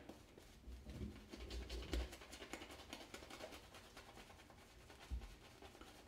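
Shaving brush scrubbing lather on the face: faint, quick scratchy swishing of bristles against stubble, with a couple of soft low bumps.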